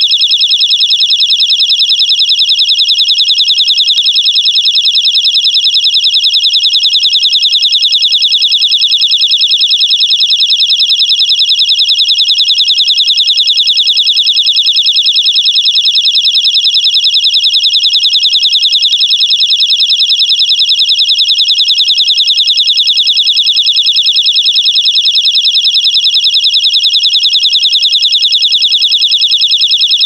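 Spider Wrap anti-theft security tag alarm sounding: a very loud, shrill high-pitched tone that pulses rapidly and evenly without a break.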